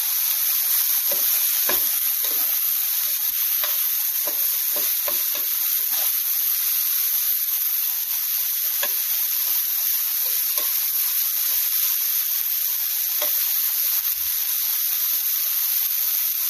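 Chunks of chicken with chopped onion and cherry tomatoes sizzling steadily in a nonstick frying pan, with a spatula now and then scraping and stirring them.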